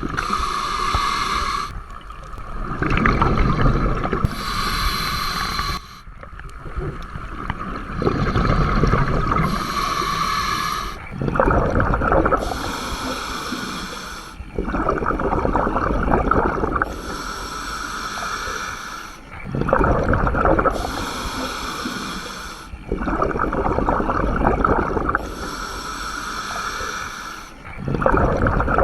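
Scuba diver breathing through a demand regulator. Each breath is a hissing inhale followed by a bubbling exhale, repeating about every four seconds.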